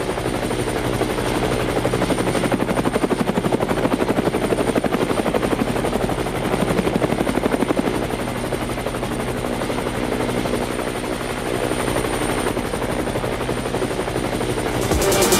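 Helicopter-style rotor sound: a fast, even chopping over a steady engine hum.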